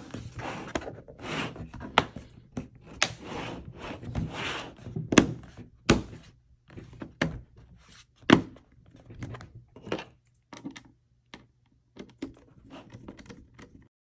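Plastic bottom cover of a Dell G15 5511 laptop being pressed down and snapped onto the chassis: an irregular run of sharp clicks and thunks as its clips catch, with hands rubbing over the panel between them.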